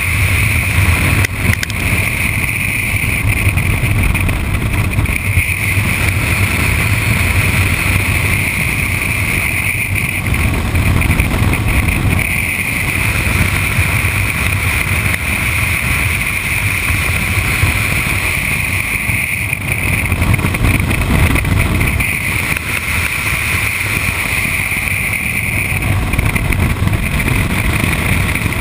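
Wind rushing over the microphone of a motorcycle-mounted camera at highway speed, with the motorcycle's engine running underneath. A steady high whine runs through it, dropping away briefly a few times.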